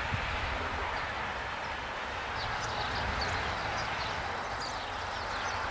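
Outdoor ambience: a steady background hiss with a low rumble, and from about two seconds in, small birds chirping in many short, quick notes.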